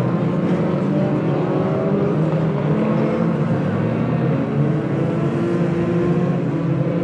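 Several banger racing cars' engines revving together, their pitches rising and falling over a steady low drone.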